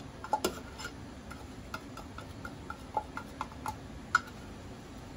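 Spatula stirring and scraping curry powder in a square aluminium camp cooker, as it dry-roasts over a gas stove: irregular light clicks and taps of the utensil on the pan, about one or two a second, the sharpest about four seconds in.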